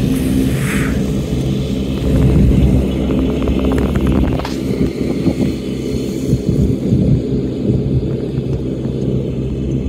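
Massey Ferguson 5711 tractor's engine running steadily under load, driving a Major Cyclone rotary topper that is cutting long grass: a steady low drone, with a run of short clicks near the middle.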